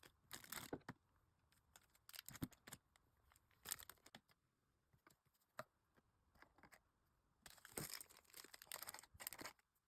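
Faint crinkling and rustling of plastic packaging being handled, with light taps. It comes in short scattered bursts: a few in the first four seconds, then a longer run near the end.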